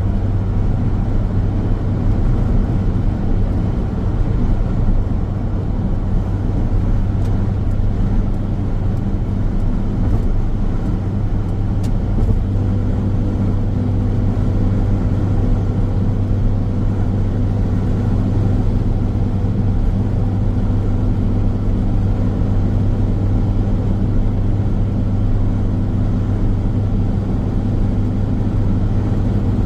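Steady road noise of a car driving along a highway: tyres and engine making a continuous low drone, with a faint extra hum joining about twelve seconds in.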